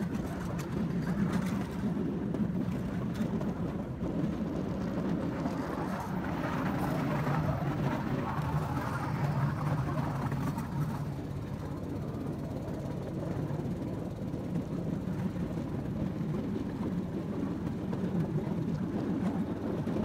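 Cambodian bamboo train (norry) running along the rails, heard from on board: a steady drone from its small engine mixed with the rumble of its wheels on the track.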